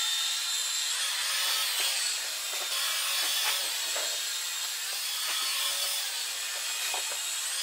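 Tiny electric motors and twin propellers of a hand-sensing mini flying toy whirring with a high buzz, its pitch dipping and recovering every second or two as it climbs and drops, with a few faint ticks. It is running on a run-down battery.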